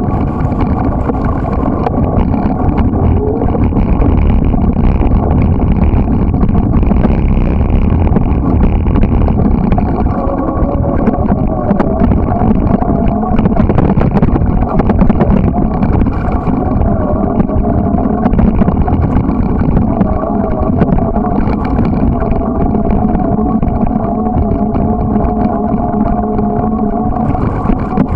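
Small motorbike engine running while riding, its pitch wavering slightly.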